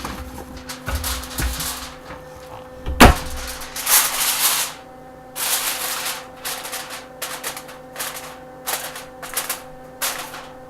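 Aluminium foil crinkling in repeated bursts as it is pressed down around a pan to seal it, with one sharp knock about three seconds in.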